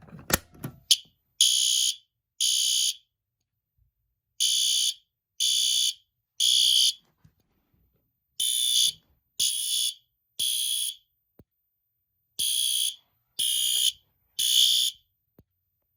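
System Sensor SpectrAlert Advance fire alarm horn sounding the temporal-3 evacuation pattern: three short blasts about a second apart, a pause, then the three again, repeating steadily.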